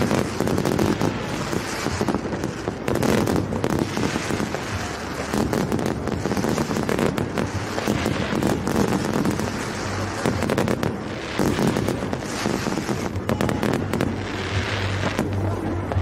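Fireworks display: a dense, continuous run of bangs and crackling bursts, one right after another.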